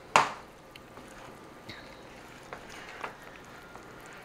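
A single sharp knock against a plastic mixing bowl just after the start, followed by soft scraping and a few faint clicks as a rubber spatula stirs chopped pecans into thick cake batter.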